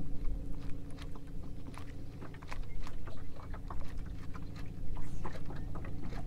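Steady low electric hum of a Minn Kota bow-mounted trolling motor running, with irregular small clicks and ticks from a baitcasting reel and rod being handled.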